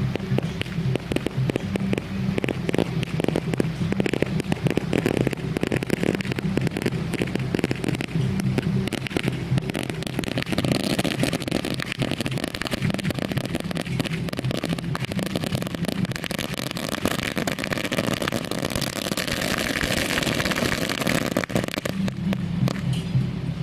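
Strings of firecrackers crackling densely over a steady low rumble.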